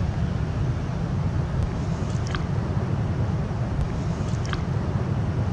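Wind buffeting the microphone: a steady low rumble, with two faint short high chirps about two seconds and four and a half seconds in.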